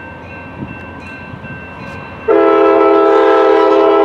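A train horn blows, starting suddenly about two seconds in: a loud, steady chord of several notes held without a break. Before it there is only a faint steady tone under background noise.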